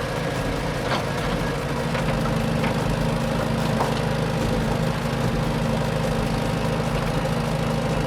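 Engine idling steadily, with a fast even low pulse and a few faint ticks.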